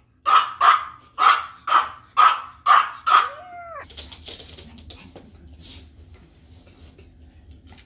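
A Morkie (Maltese–Yorkshire terrier mix) puppy barking excitedly: about seven sharp, high barks in quick pairs over three seconds, ending in a short falling whine. Quieter handling rustle and clicks follow.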